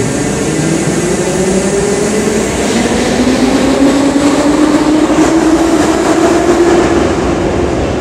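Metro train accelerating along the platform: wheels rumbling on the rails under a traction-motor whine that rises in pitch as it gathers speed, fading as the last car passes.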